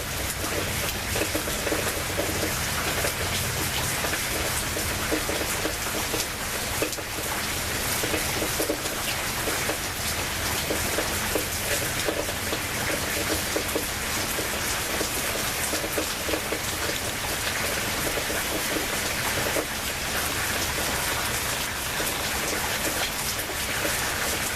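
Heavy rain falling steadily in a rainstorm, a dense, even patter of drops hitting surfaces.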